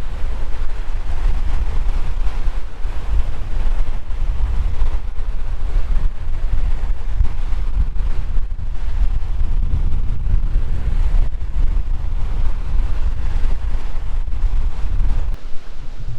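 Strong wind buffeting the microphone: a loud, gusting low rumble that drops off suddenly near the end.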